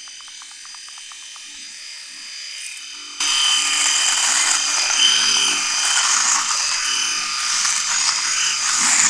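Philips S9000 rotary electric shaver running and shaving through shaving foam on stubble, a steady buzz that jumps suddenly louder about three seconds in.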